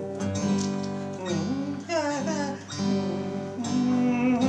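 Acoustic guitar strumming chords, one struck about every second, as an introduction in the key the performer has just settled on.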